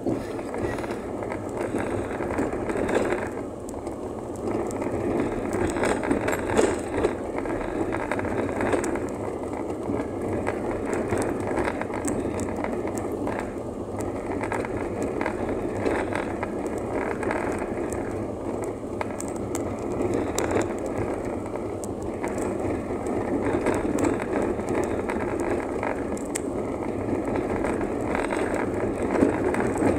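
Steady road noise of a vehicle riding over a rough dirt track: tyre rumble and rattling, with scattered small knocks from bumps and gravel.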